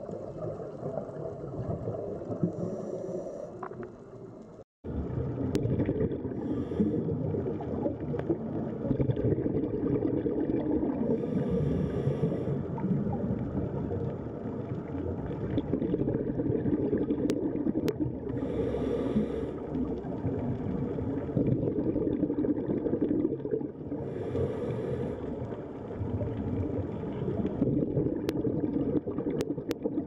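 A scuba diver's breathing through a regulator as heard on an underwater camera: a short hiss every six or seven seconds over a steady low rush of bubbles and water. The sound cuts out for a moment about five seconds in.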